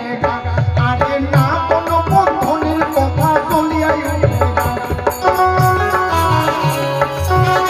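Live instrumental folk music: drums beating a rhythm under a steady melodic instrument line.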